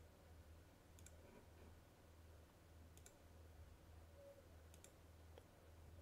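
Near silence with a few faint computer mouse clicks spread over several seconds, over a steady faint low hum.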